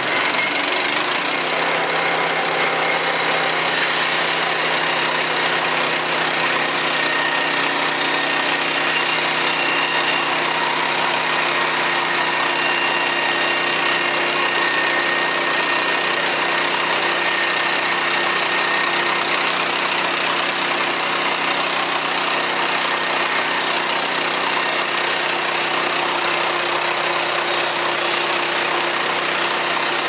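Woodland Mills HM130 Max portable bandsaw sawmill's gasoline engine running steadily, freshly started, as the saw head is brought up for the first cut.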